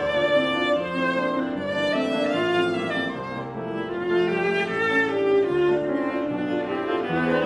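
Viola playing a sustained bowed melody with piano accompaniment, classical solo repertoire.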